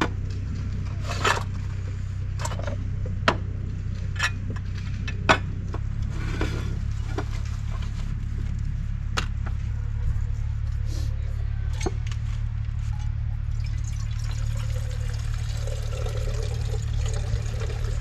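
Water being poured for camp coffee, with several sharp clicks and knocks of gear being handled in the first few seconds, over a steady low rumble.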